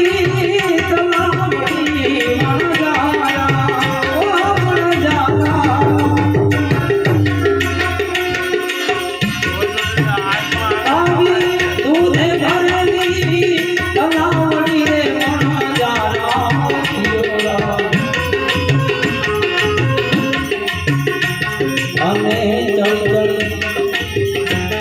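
Instrumental interlude of Gujarati santvani devotional folk music: tabla playing a steady rhythm under a melody instrument, with no singing.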